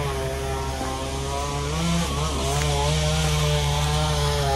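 Wood chipper's engine running hard as tree wood is fed in, its pitch sagging briefly about two seconds in.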